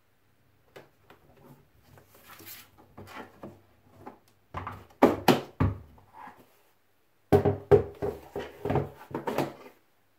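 Plastic Graco booster seat being handled and turned over on a tabletop: scattered knocks and thuds of hard plastic, loudest in two clusters about halfway through and near the end, with light rustling and tapping between.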